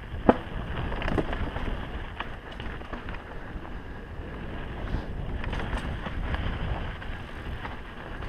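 Mountain bike riding fast down a dirt singletrack: a steady rumble of tyres on dirt and wind on the microphone, broken by sharp knocks and rattles from the bike over bumps and rocks. The loudest knock comes just after the start.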